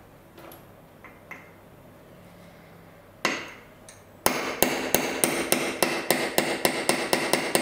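Small hammer striking a steel pin punch to drive the old shaft out of a brushless RC motor: one single tap, then about a second later a steady run of light, ringing taps, about four a second.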